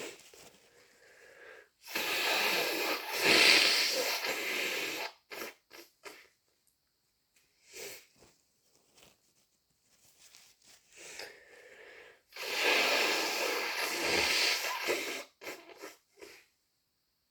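Two long, wet nose blows by a person with a head cold, each lasting about three seconds, starting about two seconds in and again past the middle, with short sniffs and snuffles before and after each. The blows are the sound of a congested, runny nose.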